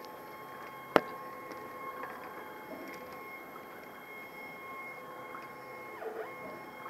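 Homemade CNC hot-wire foam cutter running on its stepper motor drive: a steady high whine of several tones, with one sharp click about a second in. Near the end the whine briefly drops in pitch and recovers.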